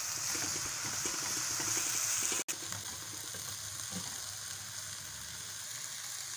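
Chopped fenugreek leaves sizzling in hot oil in a pan as a spatula stirs them, their moisture cooking off. The sizzle cuts out for an instant about two and a half seconds in, then carries on a little quieter.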